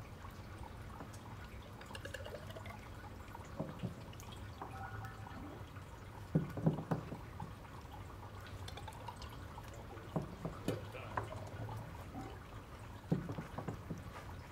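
Liquid dripping and trickling from a spout, with a few dull knocks and small handling clicks.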